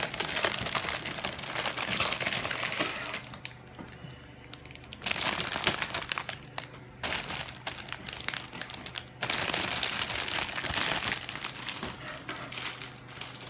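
Plastic bags around a model kit's parts runners crinkling as they are handled and lifted out of the box, along with the rustle of the paper manual, in several bursts with a brief lull about a third of the way in.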